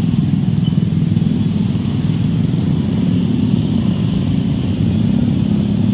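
Dense road traffic of motorcycles and scooters crawling past, their small engines running together in a steady, loud drone.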